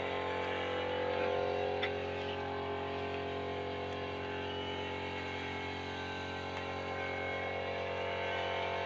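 Steady, even drone of a motor or engine running with an unchanging pitch, and a faint click about two seconds in.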